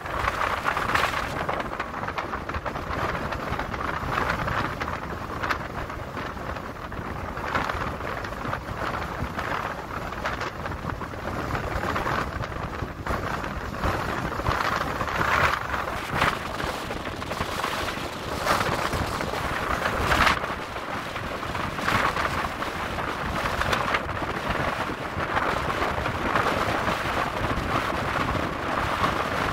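Strong wind of 30-plus knots buffeting the microphone in rising and falling gusts, over the wash of choppy sea water.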